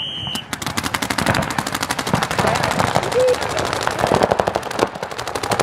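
A short high beep at the very start, then paintball markers firing in rapid, overlapping strings of shots as the point breaks out.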